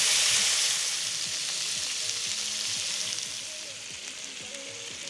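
Food sizzling in a hot pan. The sizzle is loudest at the start and dies down steadily.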